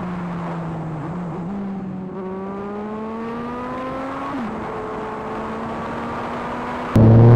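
Motorcycle engine running on the road at a steady speed, its pitch climbing slowly for a couple of seconds as it accelerates, then dropping sharply and holding steady again. Near the end it jumps suddenly to a much louder engine sound.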